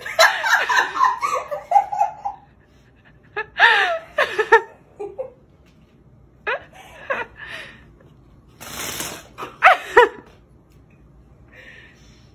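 People laughing in several separate bursts, with little sound in the last two seconds.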